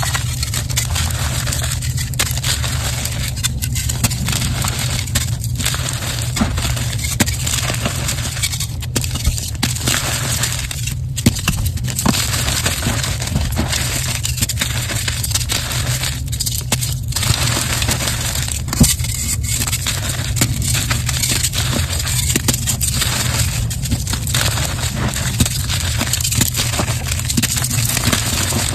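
Brittle, crunchy material being crushed over and over: continuous dense crunching and crackling with no real pauses, over a steady low hum.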